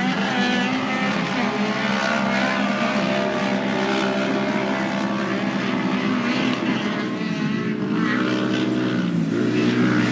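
Off-road race car engines running and revving as the cars race around the track, with pitch that swings up and down and rises near the end.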